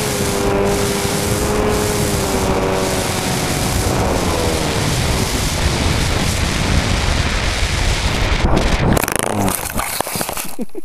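RC flying wing heard from its onboard camera: a motor and propeller whine over rushing wind, the whine fading out about four seconds in as the power is cut, leaving wind noise as it glides. Knocks and scrapes near the end as it comes down on the ground.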